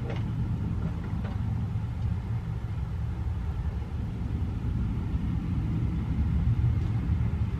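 A steady, uneven low rumble with no clear pitch.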